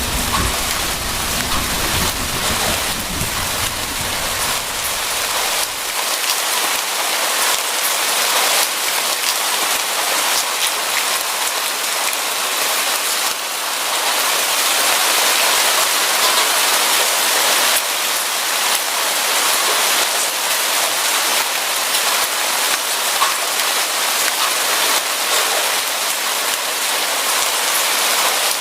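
Steady heavy rain pattering on a surface. A low thunder rumble under the rain cuts off about six seconds in.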